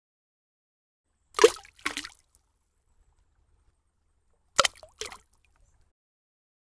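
Cartoon splash sound effects as animated eggs drop into a paint bucket and land: two quick pairs of short splashes, about three seconds apart.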